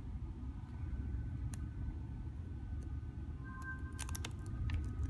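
Small clicks and taps of a hand handling a smartphone in its cardboard retail box, most of them about four seconds in, over a steady low background rumble.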